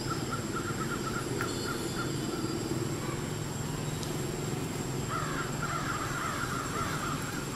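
A bird calling in rapid runs of short, evenly pitched notes: one run over the first two seconds or so, another starting about five seconds in. A steady low hum lies underneath.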